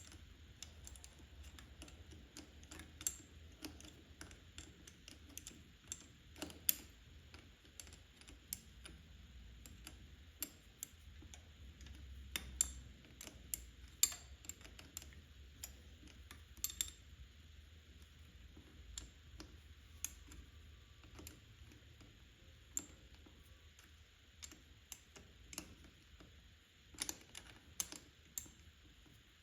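Light, irregular clicks and taps of small metal parts and hand tools being handled during motorcycle carburetor work, a few each second with short pauses, over a faint steady room hum.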